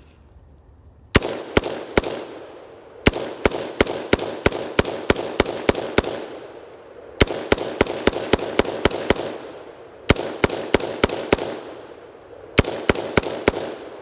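BCM AR-15 rifle in 5.56 firing rapid semi-automatic strings, several shots a second with short pauses between strings, each shot ringing out with echo.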